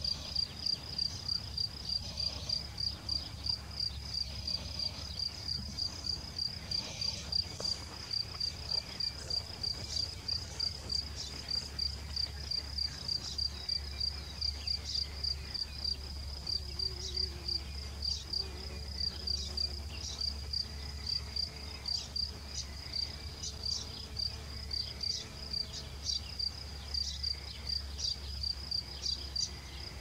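An insect, cricket-like, chirping steadily: a high-pitched, rapidly and evenly pulsing trill, over a low background hum.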